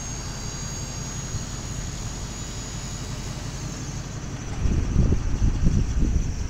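Dump truck engine running while its hydraulic hoist strains to lift the bed under a heavy load of scrap wood. There is a thin high whine, and the sound grows louder and rougher about four and a half seconds in. The hoist is struggling to lift, which the owner puts down, probably, to low hydraulic fluid.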